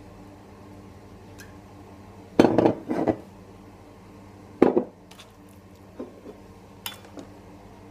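Clunks and knocks of kitchen handling on a counter: a glass olive oil bottle being put down and chicken being worked on a plastic cutting board. The loudest knocks come in a cluster about two and a half to three seconds in and once more near five seconds, followed by a few lighter taps.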